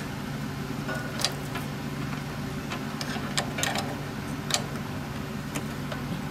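Scattered light clicks and taps of a wrench and metal fittings being handled at a lawn tractor's carburetor, heard over a steady low hum.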